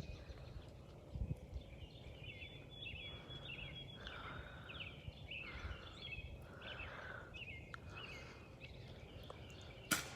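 Songbirds chirping and whistling in the trees, a run of short calls through the middle, then a single sharp click near the end.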